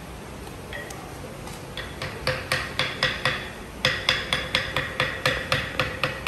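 A hammer striking repeatedly and quickly, about four blows a second, each blow ringing briefly. The blows start faint about a second in, grow louder from about two seconds in, and pause for a moment near the middle.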